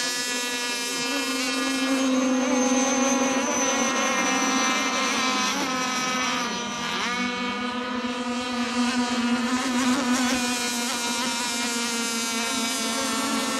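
Several radio-controlled racing boats run flat out across the water, their small high-revving motors making a steady, high buzz. Several pitches overlap. About halfway through the pitch dips and comes back up as a boat passes close by.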